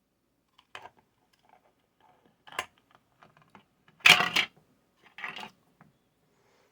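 Hard small objects being handled and set down on a workbench: a few scattered clicks and clacks, the loudest a brief clatter about four seconds in.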